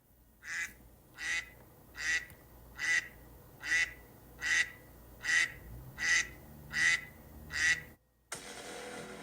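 A bird calling a steady series of about ten short, harsh calls, evenly spaced a little under a second apart, cut off abruptly near the end.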